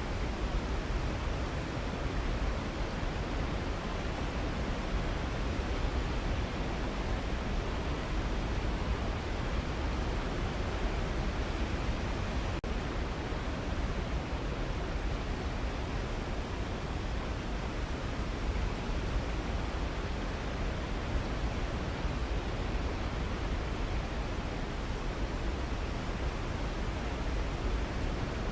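Waterfall: a steady, even rush of falling water, with one split-second dip in level about twelve seconds in.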